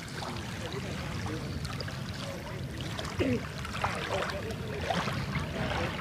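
Open-air reservoir shore ambience: steady wind rumble on the microphone with water lapping at the shoreline, and a few faint distant voices now and then.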